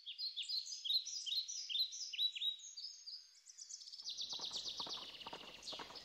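Songbirds singing, with quick repeated chirps and short falling notes, then a fast trill. About four seconds in, a run of irregular knocks joins the birdsong.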